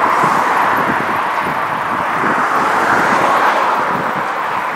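Steady rushing noise of road traffic on a bridge, mixed with wind buffeting the microphone of a camera carried on a moving bicycle.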